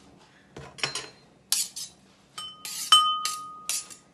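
A kitchen knife scraping chopped garlic into a ceramic bowl: a few short scrapes, then the blade knocks the bowl twice late on and leaves a clear ringing tone for about a second.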